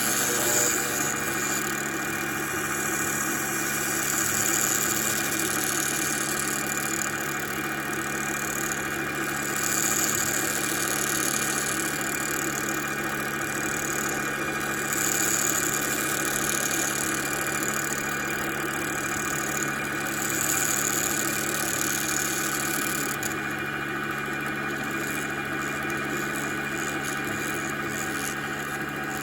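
Emco Unimat PC CNC lathe running, its motors giving a steady whine. About every five seconds a louder hiss rises and falls as the tool makes a cutting pass on a pencil; the passes stop near the end.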